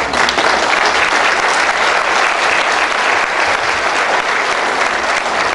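An audience applauding steadily throughout, a dense patter of many hands clapping.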